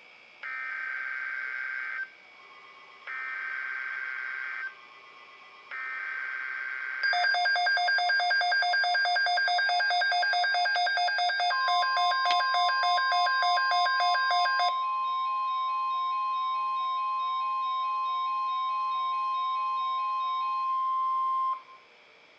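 Emergency Alert System signal: three short bursts of digital header data, then a pulsing multi-tone alarm. About four seconds into the alarm, a steady single-pitch attention tone joins it, outlasts the alarm, and holds for about ten seconds before cutting off.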